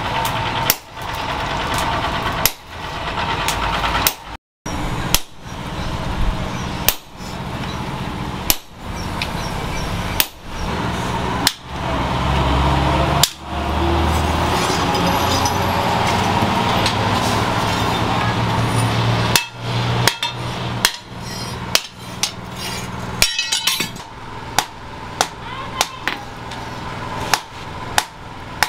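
Hammer blows on red-hot leaf-spring steel on an anvil, over a steady hum. The strikes come singly, more than a second apart, at first, then quicken to about two a second near the end.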